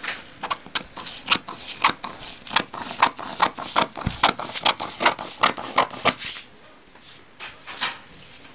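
Scissors cutting through brown pattern paper: a run of short crisp snips, about two or three a second, that thins out after about six seconds into fainter paper rustling.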